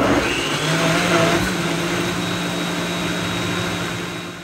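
Countertop blender running steadily at speed, blending a smoothie of yogurt, oats, banana, blueberries, protein powder and almond milk. Its motor hum settles in within the first second and begins to wind down at the very end.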